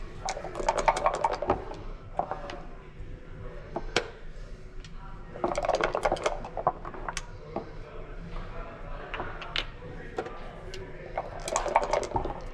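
Backgammon dice rattled in a dice cup and thrown onto the board, in three bursts about five seconds apart, with single sharp clicks between them as checkers are set down and the game clock is pressed.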